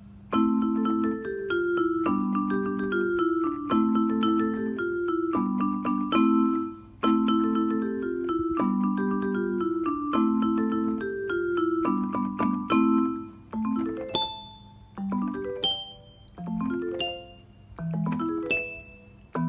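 Electronic keyboard playing a bouncy melody with chords in a bright, mallet-like voice; in the last few seconds it thins to single notes with short pauses between them.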